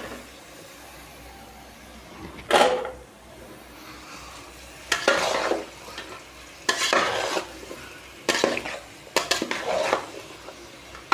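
Cut flat beans and potatoes tipped into a pot of frying masala and stirred with a metal spoon: several short bursts of scraping and clatter against the metal pot, over a low sizzle.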